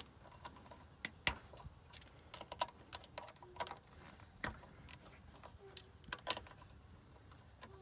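Irregular light clicks and clinks of small metal parts and hand tools being handled, with a pair of sharper clicks about a second in.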